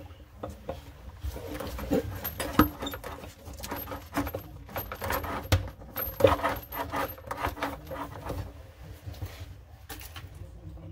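Irregular clinks, knocks and rubbing of tools and small plumbing parts being handled under a sink.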